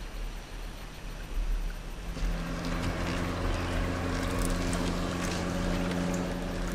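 A motorboat's engine comes in about two seconds in and runs at a steady pitch over the hiss of water and wind.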